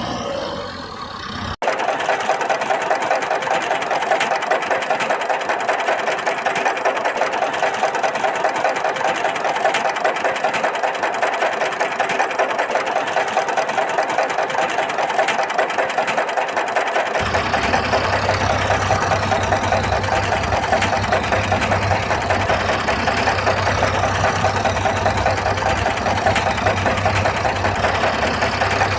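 Engine sound with a fast, even rattle, steady throughout after an abrupt cut about a second and a half in; a low hum joins about two-thirds of the way through.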